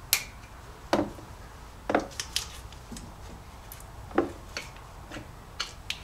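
Irregular light clicks and taps, about nine in all, as old battery power cables and their metal terminals are handled and knock against parts in a truck's engine bay.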